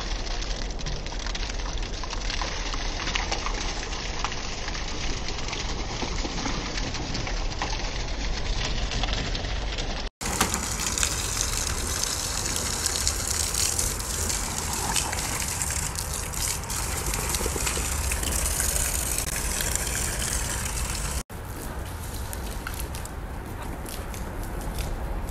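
Steady rushing, gushing water noise from a hose or wading-pool play, cut off abruptly twice, about ten and twenty-one seconds in, as short clips change.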